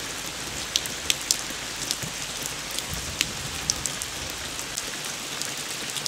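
Steady rain falling, an even hiss with scattered sharp ticks of single drops striking close by.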